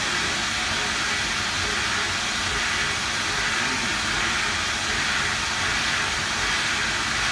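Mikron MILL E 700 U CNC machining centre roughing hardened 52 HRC tool steel with a 10 mm carbide end mill on a dynamic milling toolpath: a steady, even hiss with no breaks, as the constant tool engagement of this high-feed strategy keeps the cut continuous.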